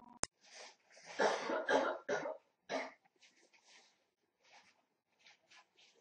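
A sharp click near the start, then a few harsh coughs close to the microphone.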